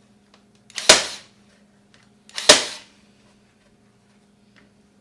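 Milwaukee battery-powered stapler firing twice, about a second and a half apart, driving T50 staples through fabric into a wooden frame. Each shot is a sharp snap with a brief lead-in just before it.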